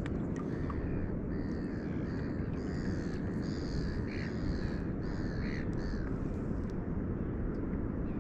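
A crow cawing over and over, a string of harsh calls about two a second that starts about a second in and stops a couple of seconds before the end. Underneath is a steady low rush.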